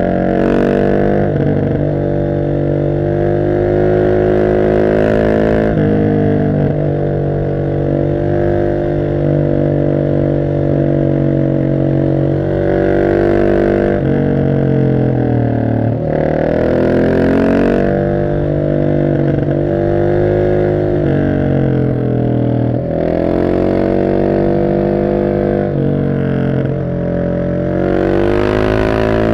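Husqvarna 701 SM's single-cylinder engine through an Arrow exhaust with the catalyst removed, pulling under way. It holds a steady pitch for several seconds, then drops and climbs again several times through the gears, with sharp dips around the middle and near the end.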